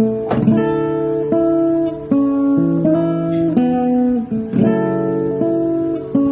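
Background music: acoustic guitar strumming and picking chords, with no singing.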